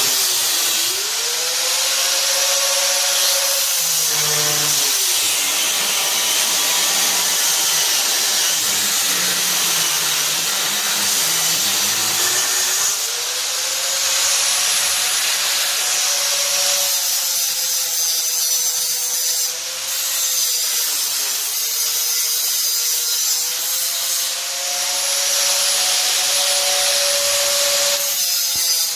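Harbor Freight angle grinder, guard off, cutting through steel: a steady grinding hiss over the motor's whine, which dips as the motor bogs under load a few times and climbs back. Near the end the cut eases off and the grinder briefly stops and starts.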